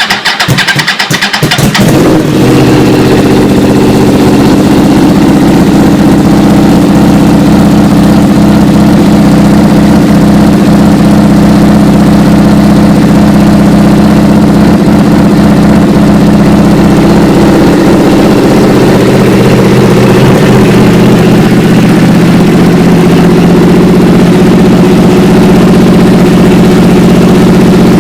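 2009 Yamaha R1's crossplane inline-four engine cranked on the starter and catching within about two seconds, then idling steadily and loudly, its first run on a freshly fitted K&N high-flow air filter.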